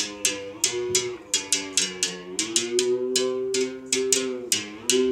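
Berimbau being played: a stick strikes the wire in a quick, uneven rhythm of about four strokes a second. The ringing note switches back and forth between two pitches, as the stone or coin is pressed against the wire and lifted off it.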